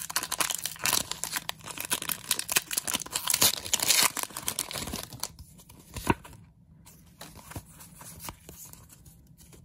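A foil Pokémon card booster pack being torn open, its wrapper crackling and crinkling in a dense run for about the first four and a half seconds. After that come quieter scattered rustles and light clicks, with one sharp click about six seconds in.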